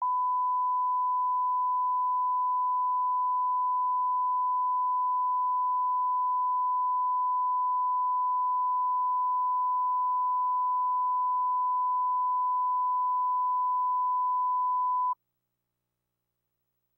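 Broadcast line-up test tone played over colour bars: one steady, pure, mid-pitched tone that cuts off suddenly about fifteen seconds in.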